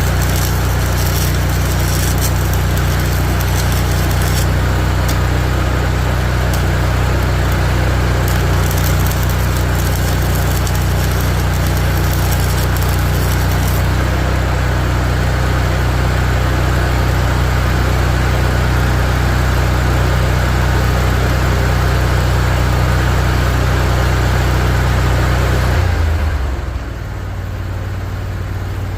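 Stick welding on thin mower deck steel with 6010 rods: the arc crackles over the welding machine's steady low drone. The drone changes and drops near the end. The rods, damp from moisture, keep sticking.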